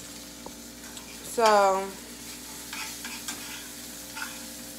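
Salmon frying in olive oil in a pan: a steady sizzle, with a few soft scrapes of a spatula chopping up the fish about three and four seconds in.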